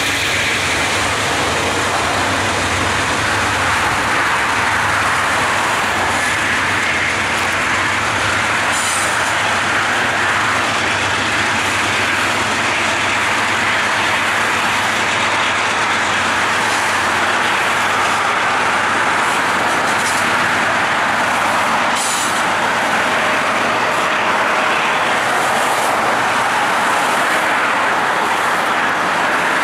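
Amtrak Auto Train's bilevel Superliner passenger cars rolling past: a steady rumble and rush of steel wheels on rail, broken by a few sharp clicks.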